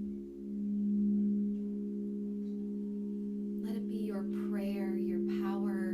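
Several singing bowls ringing together in long held tones, with a slow regular pulsing; the sound swells about a second in. A voice joins over them for the last two seconds.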